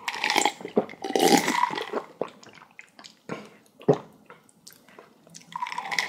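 Close-miked wet chewing of kimchi: squelching mouth sounds near the start and end, with short crunchy clicks between them, the sharpest a little before four seconds in.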